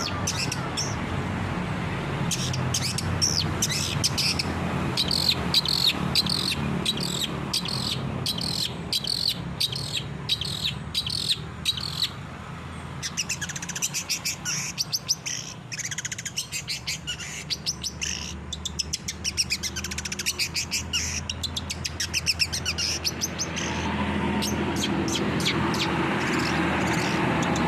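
Long-tailed shrike (cendet) singing fast, chattering runs of short high notes, in bursts with brief pauses, over a low steady hum.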